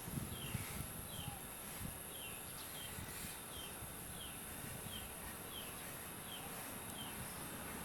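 A short falling chirp repeated at an even pace, about once every two-thirds of a second, over a steady high thin whine, with some faint rustling near the start.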